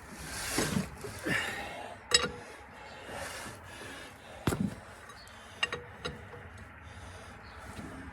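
Metal clinks and knocks from the hand crank of a Caterpillar Sixty's four-cylinder engine being turned over, with the man's hard breathing between them. The engine does not fire; it is still being cranked against full compression, with the compression release not yet set.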